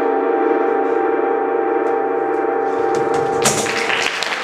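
Sustained eerie ringing drone with a fast pulsing warble: a flying-saucer sound effect. About three and a half seconds in it gives way to applause.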